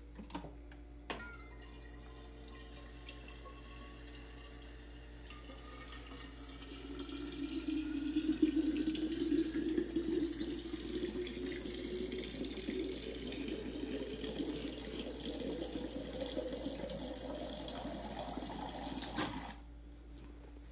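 Refrigerator door water dispenser pouring a stream into an insulated water bottle, with a click about a second in as it starts. The sound grows louder from about seven seconds in, and its pitch rises steadily as the bottle fills. The flow cuts off near the end.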